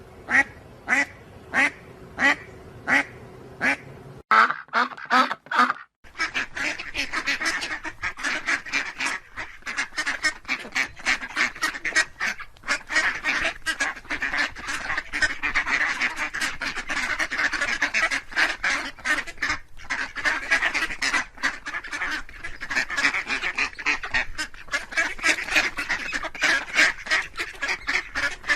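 A duck quacking at a steady pace, about two quacks a second. About four seconds in the recording cuts, and from about six seconds a flock of ducks is quacking constantly, many calls overlapping.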